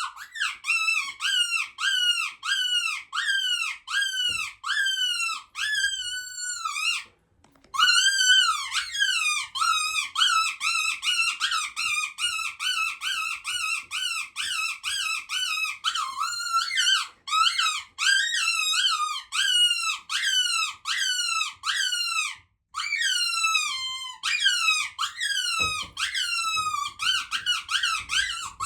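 Hand-held squeaker predator call blown in a fast string of high squeals, about two to three a second, each note bending up then down in pitch, with two short pauses. It imitates a small prey animal in distress to lure in a bobcat or coyote.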